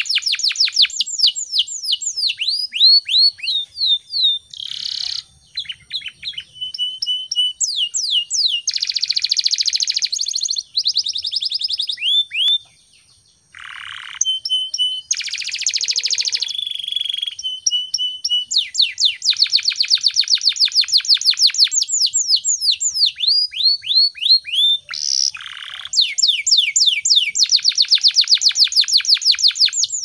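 Domestic canary singing a long, loud song of rolling trills: runs of fast, rapidly repeated descending notes alternating with dense buzzy rolls and short held notes, with a brief pause about halfway through.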